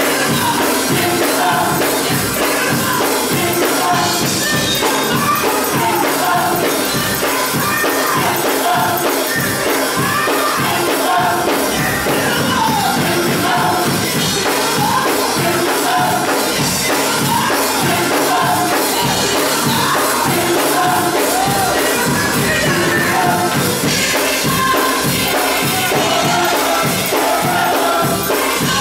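Gospel choir singing with band accompaniment over a steady, driving beat.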